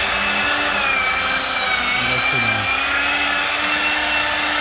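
Electric rotary polisher running steadily, its pad rubbing over freshly sanded car paintwork, with a constant high motor whine.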